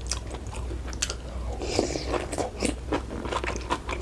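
A person chewing catfish close to the microphone, with many short clicks of the mouth and food.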